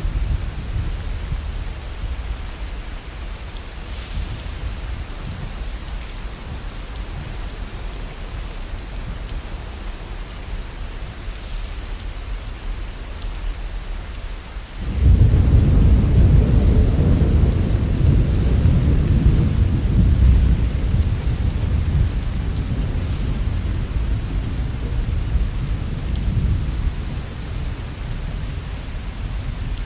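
Heavy rain falling steadily, with a low rolling rumble of thunder. About halfway through, a loud thunderclap breaks in suddenly and rumbles slowly away.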